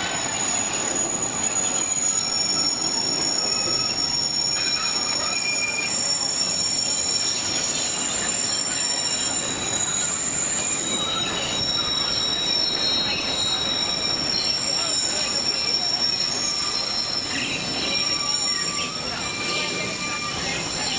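Narrow-gauge train's steel wheels squealing against the rails as the cars round a curve: several high, thin tones held for seconds at a time and shifting in pitch, over the steady rumble of the cars rolling along the track.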